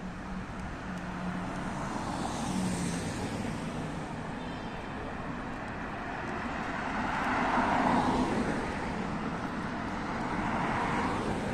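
City road traffic: cars passing with tyre and engine noise, swelling as a car goes by about two-thirds of the way through and again near the end.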